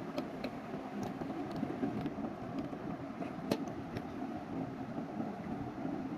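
Faint clicks of plastic building bricks being pressed and fitted together by hand, over a steady background rumble.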